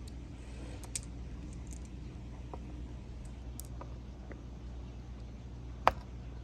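Marbles on a handmade outdoor marble run: sparse small clicks, then one loud sharp knock about six seconds in.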